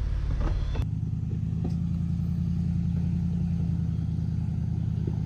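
A vehicle engine idling steadily, a low, even hum that does not change pitch. About a second in it takes over abruptly from a wash of outdoor noise.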